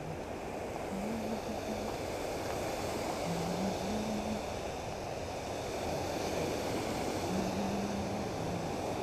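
Creek water rushing over a low dam and rocky riffles: a steady rush of water that grows slightly louder over the first few seconds.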